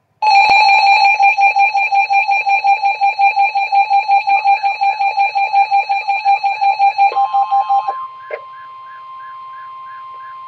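Emergency Alert System alarm tones for a severe thunderstorm warning: a loud, rapidly pulsing, bell-like ringing alarm for about eight seconds, then a quieter long steady alert tone with a repeating warble over it.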